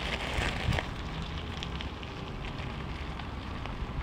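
Bicycle tyres and dogs' paws crunching over loose gravel, a crackly stream of small ticks. It is loudest in about the first second as they pass close, then settles lower as they move away.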